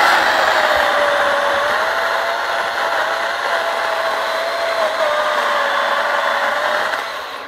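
Cordless 14-inch electric chainsaw running steadily with a steady whine, its chain cutting into a wooden tree stump; it cuts off suddenly near the end.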